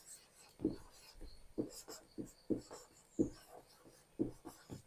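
Faint, irregular strokes and taps of handwriting, about two or three a second.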